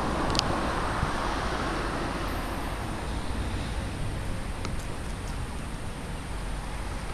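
Road traffic passing nearby: a steady rush of car noise that slowly fades, with a few short faint high ticks.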